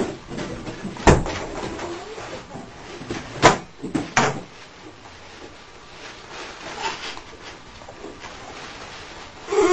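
A few sharp knocks and bangs, the loudest about a second in and two more close together around three and a half to four seconds in, with quieter bumping between them. A wailing voice begins right at the end.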